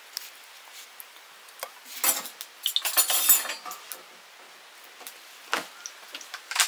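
Metal kitchen utensils clinking and scraping against pots and dishes: scattered light clicks, a dense run of clatter about two to three and a half seconds in, and a single sharp knock a little later.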